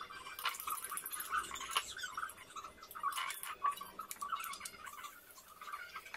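Metal spoon clinking and scraping as batter is dropped into the nonstick molds of an electric madeleine maker, with scattered light clicks. A continuous high-pitched chirping runs in the background.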